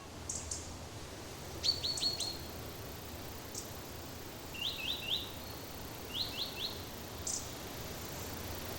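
Small birds chirping in short runs of three or four quick high notes, a few seconds apart, with a few single sharper peeps between, over a steady outdoor background hiss.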